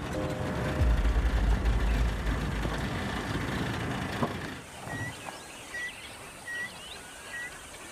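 Open safari vehicle running and driving over a dirt track, its engine and road noise dropping away about four and a half seconds in as it stops. Then a bird repeats a short high chirp four times, a little under a second apart, with fainter bird calls around it.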